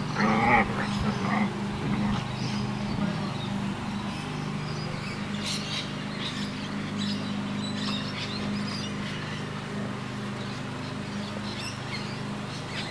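Siberian husky puppies vocalizing as they play-fight, loudest in the first second or so. Birds chirp now and then over a steady low hum.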